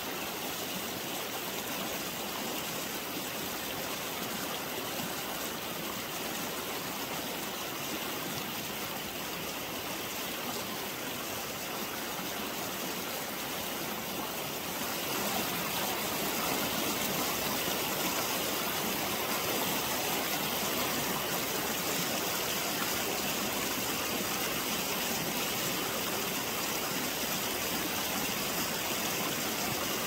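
Fast-flowing river water rushing steadily, getting louder about halfway through.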